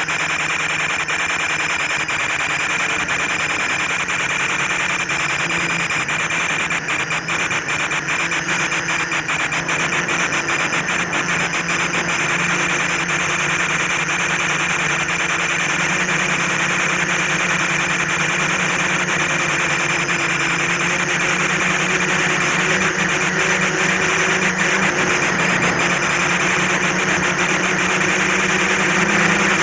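Quadcopter's electric motors and propellers buzzing steadily in flight, the pitch drifting slightly as the throttle changes. Rapid crackling clicks run through the sound from about a quarter of the way in to about 12 seconds in.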